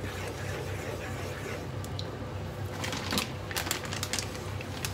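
Wooden spatula stirring a thick white sauce in a pan, with soft scraping, then a run of sharp clicks in the second half, over a steady low hum.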